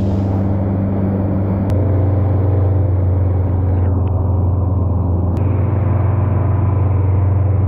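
200-horsepower outboard motor running steadily at high-speed trolling pace, a constant low drone that gets a little louder a couple of seconds in.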